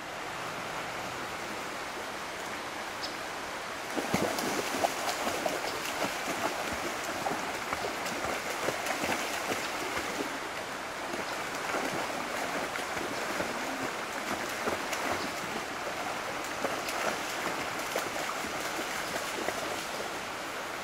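Steady rush of a shallow river, joined about four seconds in by a German shepherd splashing irregularly as it wades and runs through the water.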